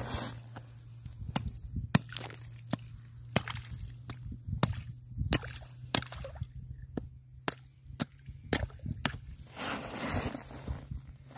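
Thin hand line being hauled hand over hand out of a hole in the ice with a fish on: a series of sharp, irregular clicks and ticks, with a brief rustling hiss near the end.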